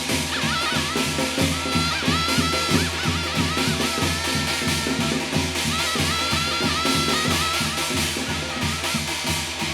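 Korean shamanic gut ritual music, with drums beating a fast, steady rhythm of about three to four strokes a second under a high, wavering melody line that comes and goes.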